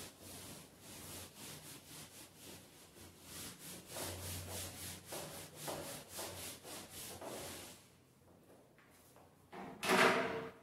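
Whiteboard eraser wiping marker off the board in quick back-and-forth strokes, about four a second, stopping about eight seconds in. A brief louder noise follows near the end.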